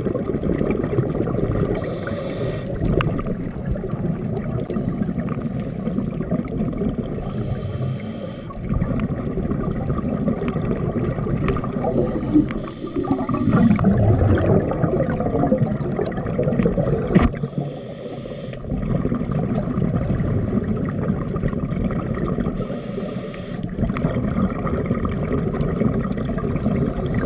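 Underwater bubbling and gurgling from a scuba diver breathing through a regulator, with a short hiss about every five seconds as each breath is drawn and a louder burst of bubbles around the middle.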